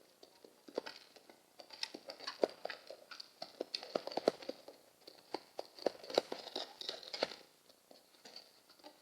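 Pigeons moving about close to the microphone: a quick, irregular patter of small taps and rustles, busiest in the middle and thinning out near the end.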